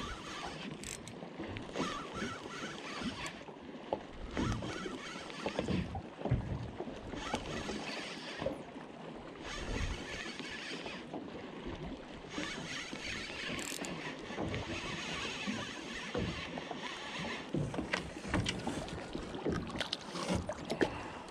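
Small boat afloat at sea: water sloshing against the hull and wind on the microphone, with scattered knocks and several stretches of hiss, each a few seconds long, that start and stop abruptly.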